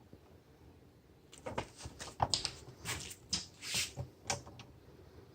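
Quick run of small clicks, taps and scrapes as a washer and nut are fitted onto a screw through a plastic vacuum handle, starting about a second in.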